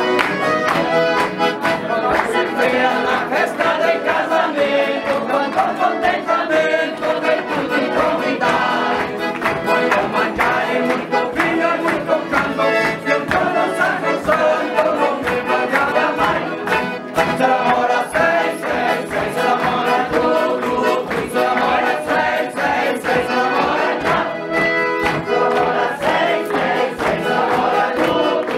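Bandinha dance-band music: accordion-led German-Brazilian dance tune with a steady beat and group singing.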